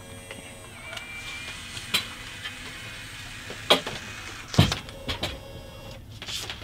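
Polaroid instant camera's motor whirring briefly about a second in as it ejects the print, followed by several sharp clicks and knocks.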